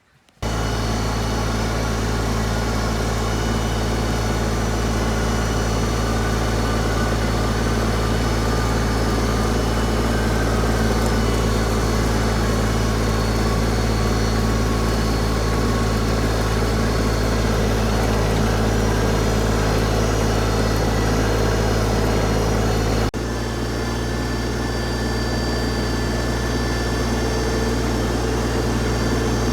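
LS MT125 compact tractor's diesel engine running steadily at an even speed. About three-quarters of the way through the sound shifts abruptly and runs on slightly changed.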